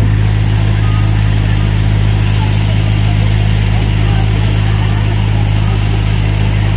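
Tata Marcopolo minibus engine idling close by, a steady low hum.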